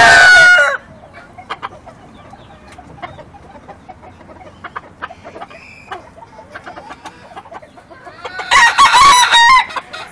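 Young Mel Sim–cross gamecock cockerel crowing: the loud end of one crow trails off just under a second in, and a second full crow comes about eight and a half seconds in. Faint scattered clicks fill the gap between the crows.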